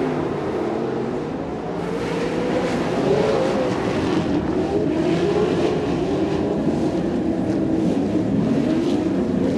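Several dirt-track racing trucks' engines running hard together, their pitches weaving up and down as the drivers accelerate and lift.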